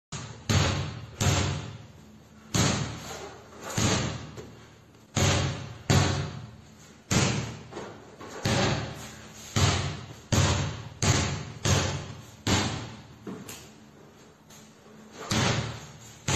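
A basketball bouncing on a hard tiled floor and smacking into hands and a young brown bear's paws as it is passed back and forth. The hits come unevenly, about one a second, each with a short echo from the bare room.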